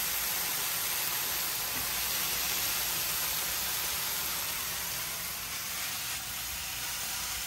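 Chipped chopped ham sizzling on a hot flat-top griddle as it heats up: a steady hiss.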